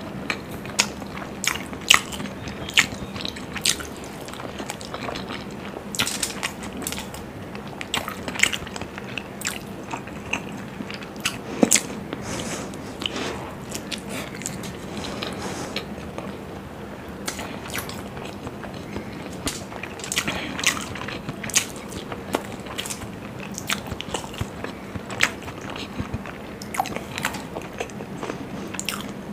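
Close-up chewing of masala-fried hard-boiled eggs, with frequent sharp mouth clicks and smacks.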